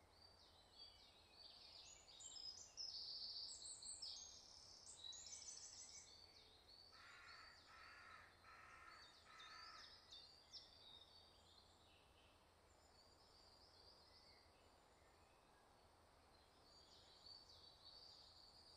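Faint dawn chorus of woodland songbirds: many high, twittering songs overlapping, busiest in the first six seconds. Around the middle, one bird gives a lower call four times in a row.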